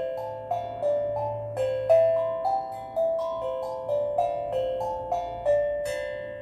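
Steel drum played slowly: single struck notes ring out and fade into one another in a gentle melody, about two notes a second.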